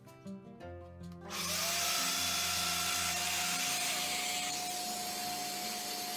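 A domino joiner with a dust extractor drawing through its hose starts about a second in, spinning up to a steady high whine over a loud rush of air, and keeps running at full speed.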